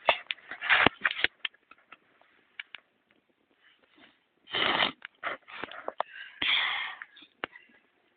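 Campfire crackling: sharp cracks and clicks in the first second, then scattered small pops. Two short breathy hissing bursts come about halfway through and again a little later.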